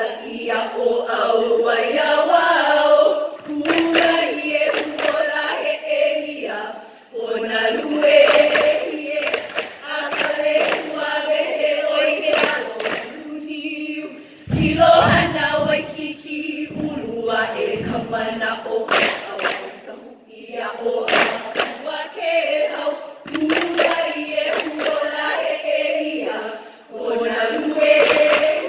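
Group of voices chanting a Hawaiian chant in unison, accompanied by ipu heke double-gourd drums thumped and slapped in rhythm. Sharp gourd knocks fall through the chant, with a deep thump about halfway through.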